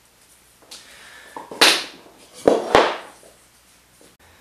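Plastic PPR pipe pieces and the mitre saw's hold-down clamp being handled on the saw's table: a loud scraping clatter, then two sharp knocks about a quarter second apart.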